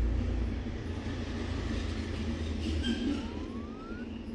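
Low rumble of vehicle traffic, with a thin rising whine about three seconds in.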